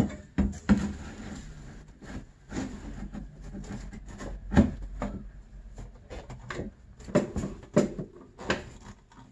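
Rusty steel snowmobile muffler being worked into place by hand: a sharp knock at the start, then irregular clunks and scrapes of metal against the engine and chassis.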